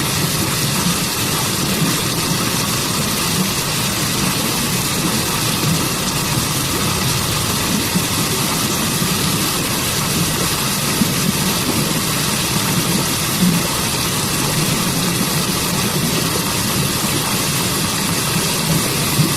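Waterfall and forest stream water rushing steadily, an even hiss with a low rumble beneath it.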